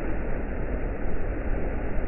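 River water rushing over boulders into a pool, a steady unbroken wash with a heavy low rumble.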